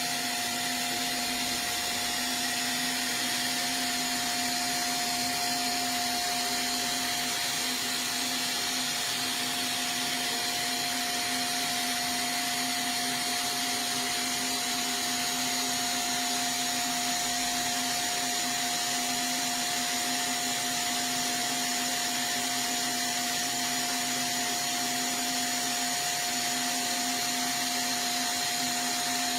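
Disk mastering lathe running during a cut: a steady rushing of suction air, the vacuum that draws the cut chip off the lacquer, with two constant tones, one low and one mid-pitched, running through it.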